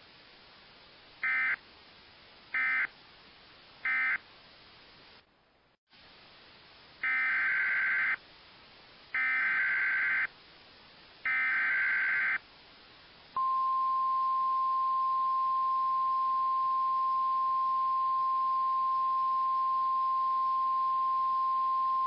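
Emergency Alert System SAME data tones: three short screeching data bursts, the end-of-message code closing the previous warning. After a brief pause come three longer bursts, the header that opens the next severe thunderstorm warning. About thirteen seconds in, the single steady 1050 Hz NOAA Weather Radio warning alarm tone begins and holds, the signal that switches weather radios on.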